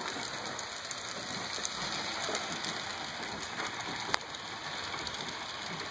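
Steady hiss with a few faint ticks and one sharp click about four seconds in: model railroad turnouts being thrown from the layout's control panel.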